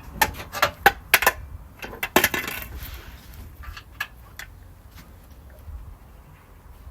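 Metal tools and parts clinking as a car's suspension arm is fitted: a quick run of sharp clinks in the first two and a half seconds, then a few scattered ones.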